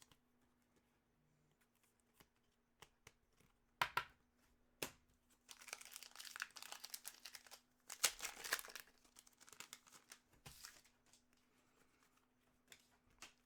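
Hockey card packs and cards being handled: crinkling and rustling of foil wrappers and cards, with scattered sharp clicks and two longer bouts of rustling about six and eight seconds in.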